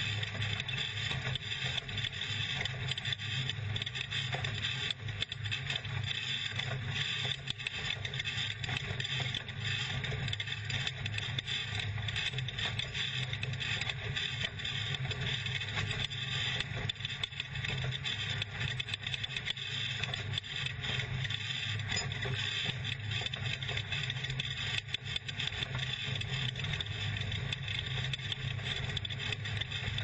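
Off-road race truck's engine running steadily under load, with a constant rattling and knocking of the chassis and cab over rough dirt and a steady rush of wind and road noise, heard from inside the cab.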